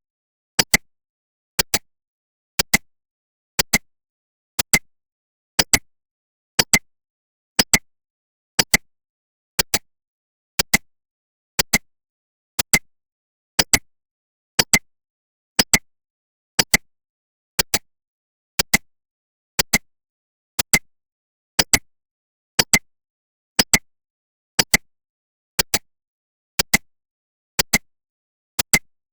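Clock-tick sound effect of a countdown timer: a sharp double tick once every second, evenly spaced.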